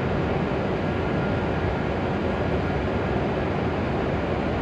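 Steady noise from an E7-series shinkansen standing at the platform with its onboard equipment running, with a few faint high steady tones and no change in level.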